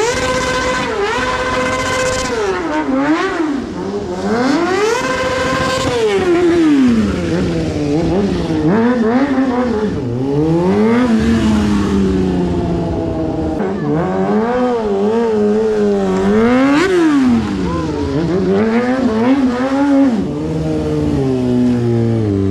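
Motorcycle engine revving hard over and over: the pitch climbs, holds at high revs for a second or two, then drops back before climbing again.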